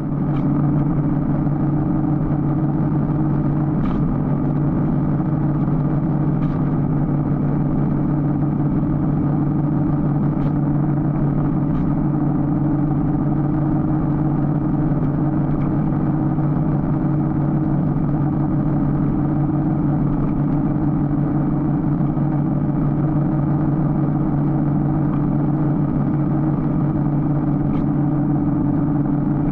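Motorcycle engine running at a steady cruise, a constant drone that holds one pitch throughout, with road noise.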